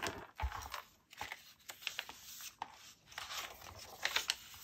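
Paper rustling as the pages and flip-up cards of a handmade junk journal are handled and a page is turned, in a string of short, crisp rustles.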